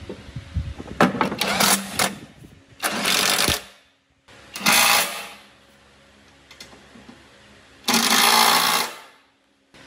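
Cordless Makita impact driver running in four short bursts, driving in the bolts of a steel side cover.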